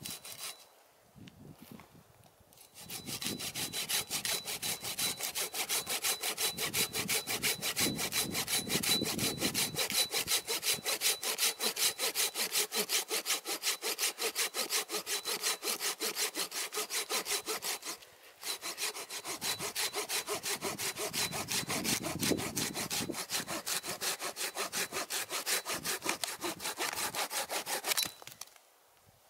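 Small folding camping saw cutting through a log by hand, in fast, even back-and-forth strokes. There is a short pause about two-thirds of the way through, and the sawing stops near the end.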